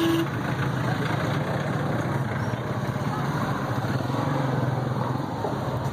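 An engine running steadily at an even, low pitch over a constant rushing noise.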